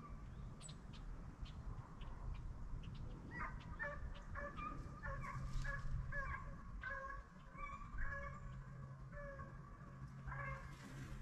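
Deer hounds baying in the distance while running a trail: clusters of short, repeated yelps, several a second, begin about three seconds in and carry on. A faint low steady hum lies underneath.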